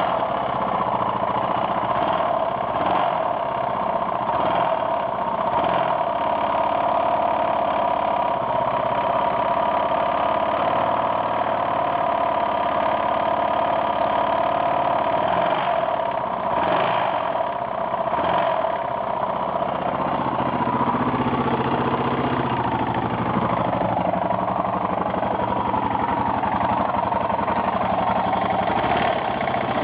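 Yamaha XT600E's air-cooled single-cylinder four-stroke engine idling steadily, with a knocking, clattering noise mixed into its running that the owner cannot place.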